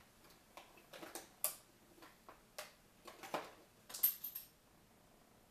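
Irregular small clicks and taps of makeup items being handled and set down, about a dozen in all. A brief high scratchy sound about four seconds in.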